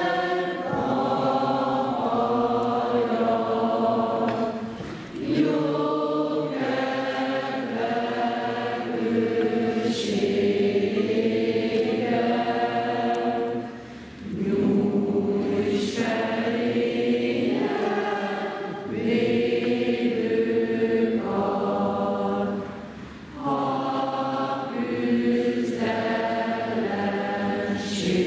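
A large crowd of children and adults singing together in slow, long-held phrases, with a short pause for breath about every nine seconds.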